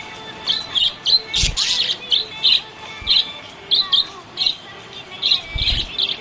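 Budgerigar chirping in a quick series of short, high chirps, about two a second. There are a couple of low thumps between them.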